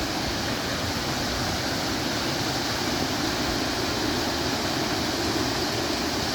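A creek rushing steadily, a continuous even wash of moving water.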